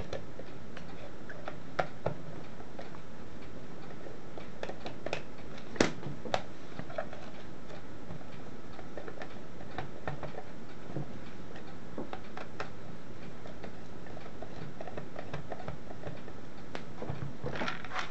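Screwdriver backing machine screws out of the plastic case of a Hickok LX303 multimeter: scattered small clicks and ticks, with a sharper click about six seconds in and a quick run of plastic clicks near the end as the case comes apart.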